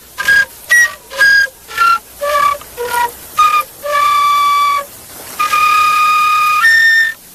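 A person whistling a tune: a run of short notes that step up and down, then two long held notes and a short higher one near the end.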